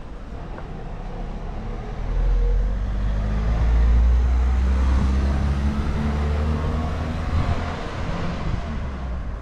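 A motor vehicle's engine running close by, a low hum that swells about two seconds in and eases off near the end, with road noise over it.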